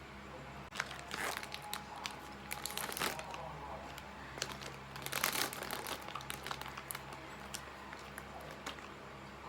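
Crinkling and crunching of ice cream being eaten close to the microphone, in two busier stretches, about a second in and about five seconds in, with scattered sharp clicks between.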